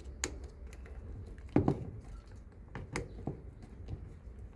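Irregular light clicks and knocks from handling a washing machine's control board and panel parts, with one louder knock about one and a half seconds in.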